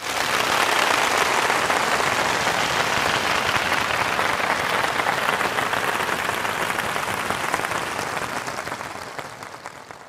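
A large audience applauding, dense steady clapping that starts abruptly and fades out over the last couple of seconds.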